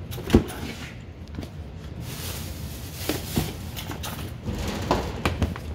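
Belongings being handled and sorted into a plastic storage tub: a plastic bag rustling, with several knocks and clunks of items, the loudest about half a second in.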